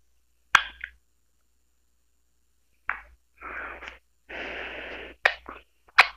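A person's breathing: a few short, sharp sniff-like intakes, with two longer breathy exhales in the middle and a quiet gap of about two seconds near the start.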